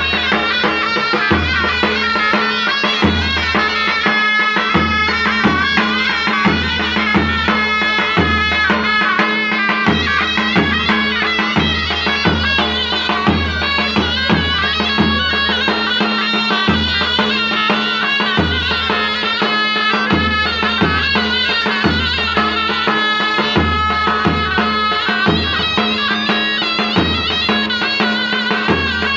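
Two zurnas play a shrill, reedy Turkish folk melody over a steady held low note. A davul bass drum beats under them in a lively rhythm.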